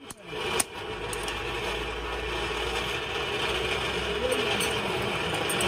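Forge blower whirring steadily, driving air into the coal fire of the forge. A single knock of metal about half a second in.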